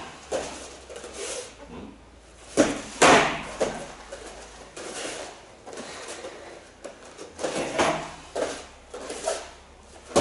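Kicks and punches landing on round padded glove-mitts held up as targets: irregular dull thuds, the loudest pair about two and a half seconds in and another run of hits near the end, with footwork shuffling on the mat between.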